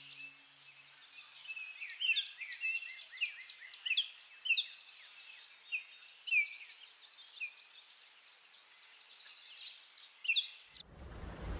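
Outdoor savanna ambience: many birds chirping and whistling in short rising notes over a steady high insect drone with a regular tick. Just before the end it cuts suddenly to a loud even rushing noise.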